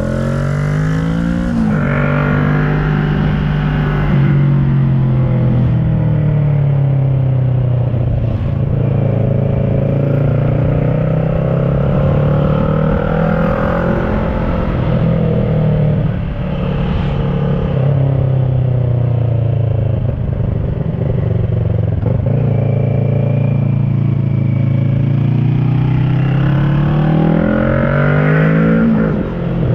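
2010 Kawasaki ER-6n's parallel-twin engine through an SC Project carbon slip-on exhaust, ridden uphill. Revs climb sharply near the start and again near the end, and rise and fall with the throttle in between.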